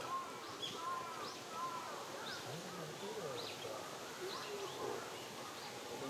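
Woodland birds calling: scattered short high chirps and repeated arching whistled notes over a steady outdoor hiss.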